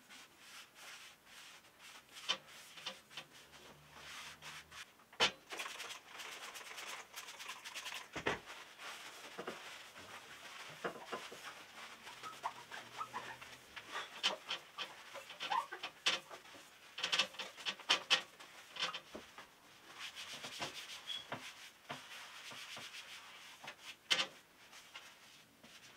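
A cleaning cloth rubbing and scrubbing over a glass shelf in irregular wiping strokes, working at leftover sticky adhesive residue, with a few sharp knocks against the metal-and-glass shelf frame.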